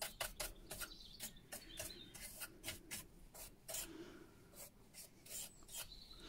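Bristles of a small paintbrush sweeping dust off a PC motherboard: a quick run of short, faint brushing strokes, about three or four a second, thinning out near the end.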